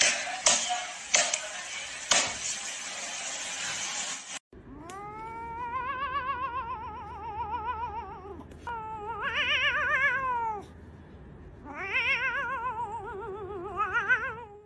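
A cat yowling: three long caterwauls with a wavering pitch, the first rising and falling over about four seconds. They follow about four seconds of steady hissing noise with a few knocks.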